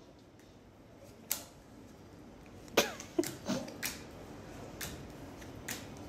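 Uno cards being dealt onto a hard tabletop: a handful of sharp, separate card slaps, most of them bunched together about three seconds in.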